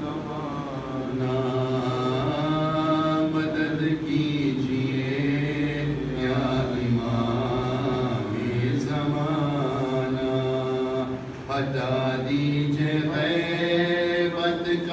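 A man's solo voice chanting a munajat qasida, a devotional supplication poem, in long held melodic phrases with brief breaks between them.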